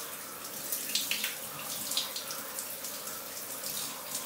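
Shower spray running, with water splashing irregularly off long hair as conditioner is rinsed out.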